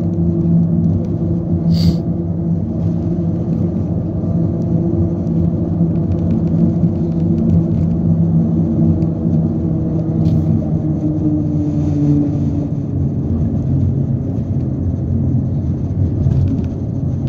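Car tyres humming on an open steel-grid bridge deck, heard from inside the car: a steady low drone with a couple of pitched tones over road noise. Two short sharp ticks, about two seconds in and about ten seconds in.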